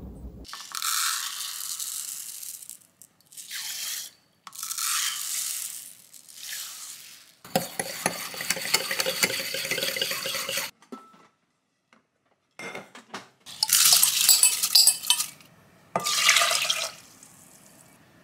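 Rice being washed in a glass measuring jug: several separate bursts of running or pouring water, and in the middle about three seconds of a whisk stirring the rice, clicking and rattling quickly against the glass.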